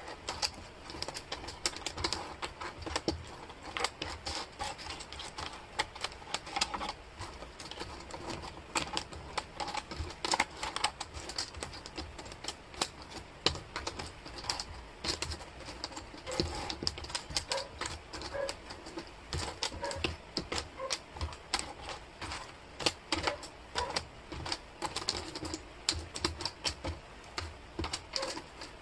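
Wooden jigsaw puzzle pieces clicking and clattering against each other and the tabletop as hands sort and slide them about, a dense, irregular run of small taps and clicks.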